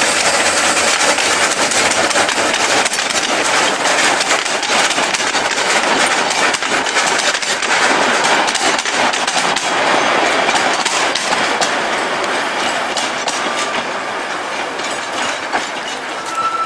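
Narrow-gauge steam train (locomotive U45.903 hauling coaches) passing close by: a dense rolling rattle of wheels and coaches with many short knocks and clicks, slowly fading as the train moves away. A brief steady high tone sounds about two-thirds of the way through, and another starts just before the end.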